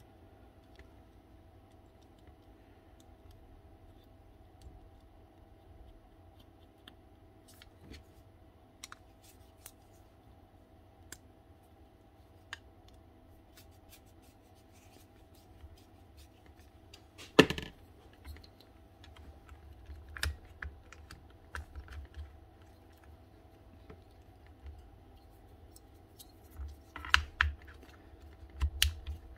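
Small clicks and taps of hands working on a reciprocating saw's wiring and plastic housing, with a sharper knock about two-thirds of the way through and a cluster of clicks near the end, over a faint steady hum.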